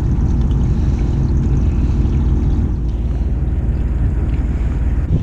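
Fishing boat's engine running steadily, a low rumble with a faint hum over it that fades about three seconds in.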